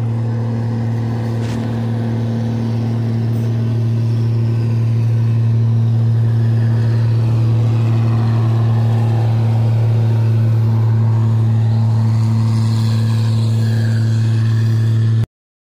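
Indian Railways electric locomotive and passenger coaches passing close by: a loud, steady low hum with running noise from the train over it. It cuts off abruptly near the end.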